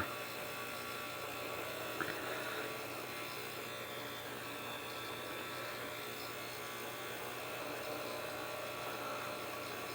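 Steady faint electrical hum and buzz, with one small click about two seconds in.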